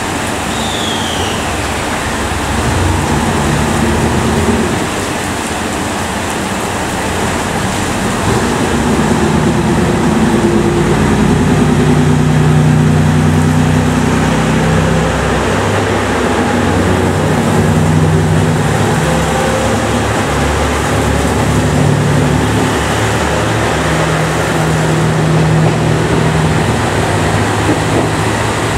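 JR Shikoku 2700 series diesel multiple unit pulling away under power, its diesel engines running loud under load with the engine note shifting as it gathers speed and passes. Heavy rain makes a steady hiss throughout.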